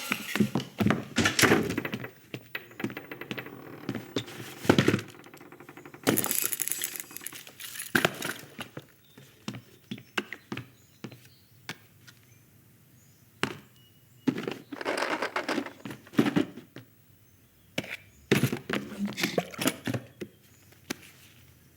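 Animated-film foley with no music: a scattered series of thunks, knocks and clacks of small objects, with bursts of denser clatter now and then and quiet gaps between.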